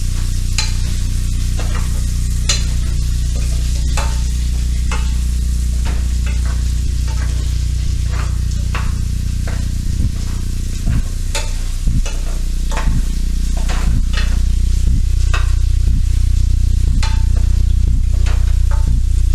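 Chicken, onion and garlic sizzling in a frying pan while being stirred, the utensil scraping and knocking against the pan roughly once a second. A steady low hum runs underneath.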